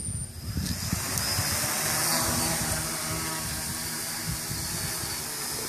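V-tail quadcopter's electric motors and propellers spinning up and lifting it off, getting louder over the first couple of seconds, then a steady whine with a rushing hiss as it hovers low.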